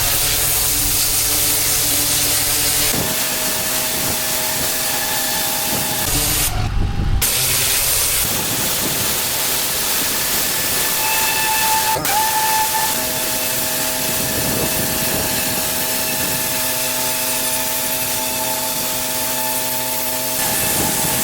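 Pressure washer spraying: a steady loud hiss of water with the machine's steady hum beneath it. About six and a half seconds in the spray stops for under a second, leaving the machine's lower note, then starts again.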